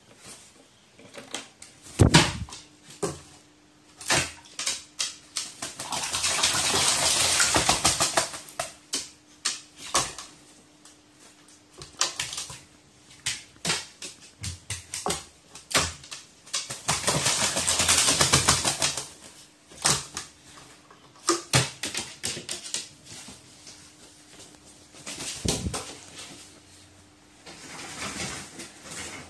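Crow bathing in basins of water: four spells of splashing and wing-flapping of a second or two each, the two longest about six seconds in and near the middle, with scattered sharp taps and knocks between them.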